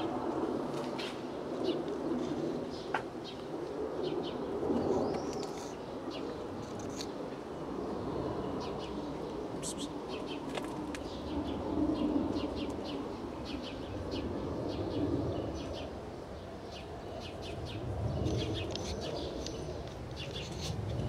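Birds calling: low, drawn-out calls recurring every few seconds, with many short high chirps over the top.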